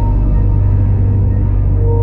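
Background music: a dark, ambient soundtrack with a steady deep drone and long held notes over it.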